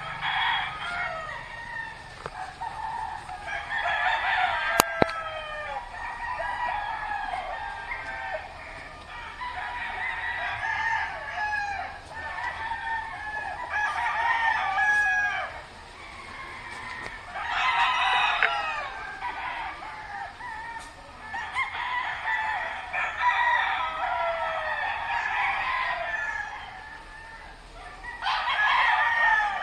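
Many roosters crowing over one another in repeated bouts every few seconds, with short lulls between. There is a single sharp click about five seconds in.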